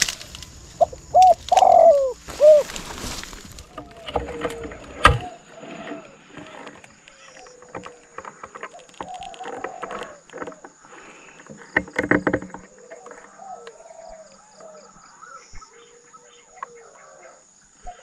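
Doves cooing: a few loud coos in the first three seconds, then fainter coos on and off. A rustling burst and a sharp knock about five seconds in come through, and a thin steady high tone runs under most of it.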